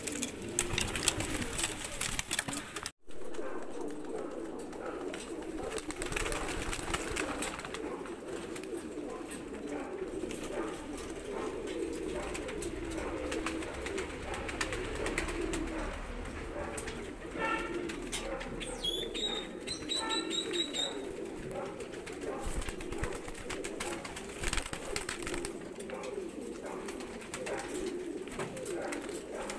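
A flock of Mookee pigeons cooing together, a steady overlapping burble. The sound drops out briefly about three seconds in. Near the middle, a few short high chirps from another small bird cut in.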